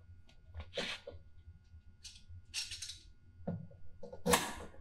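Handling noises as a wooden stage platform is clamped to a worktable: a few short scrapes and clicks of wood and clamp hardware, the loudest near the end.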